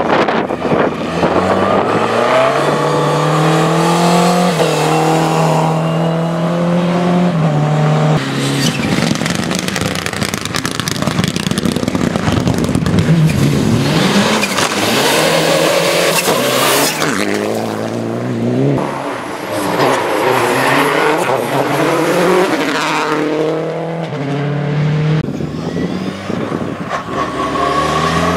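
Rally car engines at full throttle, the pitch climbing and dropping repeatedly with the gear changes, with a long stretch of dense engine and tyre noise in the middle.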